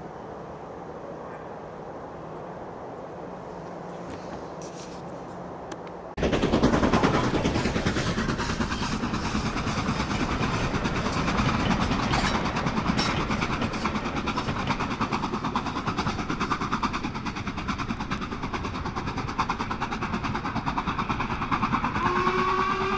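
Faint outdoor background, cut off abruptly about six seconds in by a train running close by at speed, loud and rattling. Near the end a whistle sounds, rising briefly and then holding steady.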